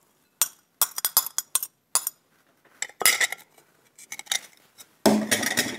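A metal spoon clinking and scraping against a small glass dish as chopped parsley is knocked out into a glass mixing bowl: a run of sharp separate clicks, then a denser, louder flurry near the end.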